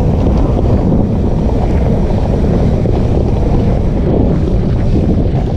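Wind rushing over a helmet-mounted camera's microphone while a downhill mountain bike rolls fast along a dirt track: a loud, steady rumble.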